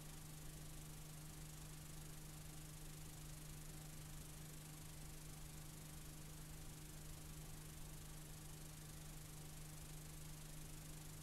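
Faint steady hiss with a constant low hum: the noise of a blank, unrecorded stretch of videotape playing back.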